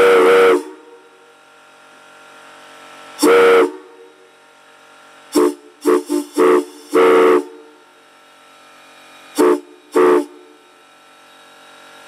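Steptop Southern three-chime steam whistle blown on compressed air, sounding its chord in a series of blasts. A blast cuts off about half a second in, another comes around three seconds, then a quick run of four short toots, a longer blast around seven seconds, and two short toots near ten seconds. A faint steady hiss of air runs between the blasts.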